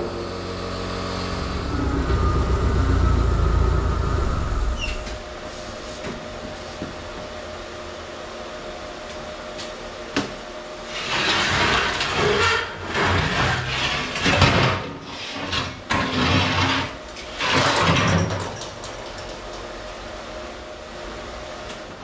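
Forklift engine running, rising to a louder rev about two to four seconds in, then settling to a lower steady hum. Several loud bursts of rushing hiss follow, from about eleven to eighteen seconds in.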